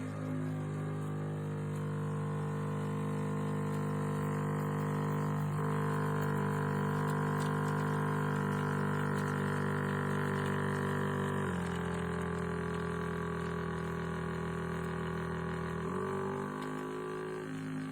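Portable espresso maker's pump running with a steady drone, its pitch shifting in steps a few times as it works.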